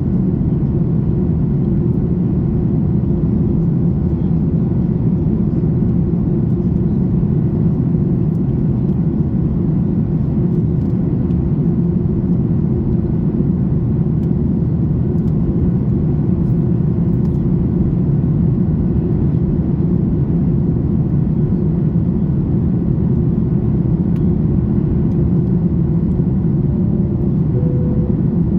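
Steady in-flight cabin rumble of a Boeing 737 MAX 8 during descent: airflow over the fuselage and its CFM LEAP-1B engines, heard from inside the passenger cabin by the wing.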